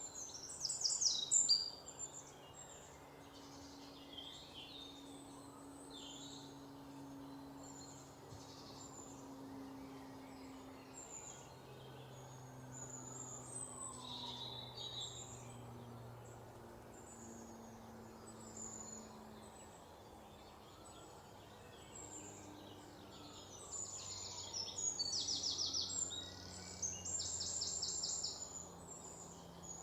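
Small birds chirping, with rapid trills near the end, over a faint low steady hum.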